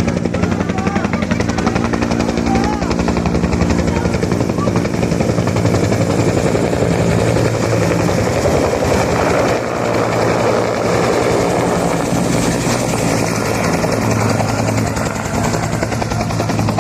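Helicopter hovering or passing close by, its rotor blades chopping rapidly over a steady engine hum, with faint voices in the first few seconds.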